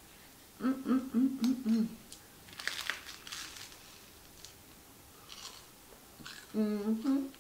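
A woman's pulsing, pitched 'mm-mm-mm' of relish, then about a second of crunchy scraping from thickly buttered toast as the knife spreads and she bites in, and another short 'mmm' through a mouthful near the end.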